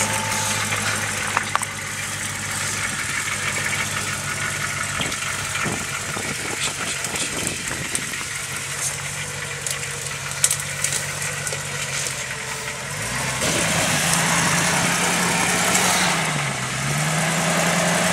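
Land Rover Discovery 2's 4.0 litre V8 running at low revs as the truck crawls over rocks, with a few sharp knocks along the way. About thirteen seconds in the engine revs up and holds, dips briefly and rises again near the end.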